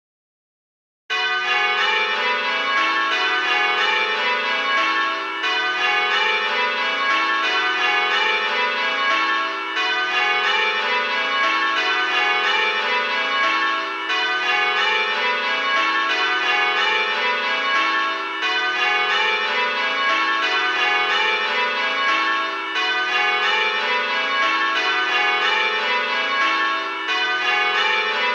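Six tower bells from a bell-ringing simulator ring in turn, starting about a second in. Each row steps down in pitch from treble to tenor, with a short gap about every four seconds: the handstroke gap of change ringing.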